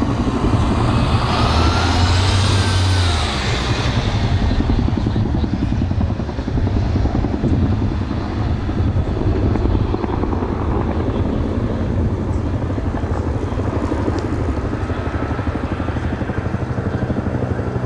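Firefighting helicopter with a water bucket on a long line flying over, its rotor beating steadily and fast. About two seconds in, a high whine rises and falls as it passes close.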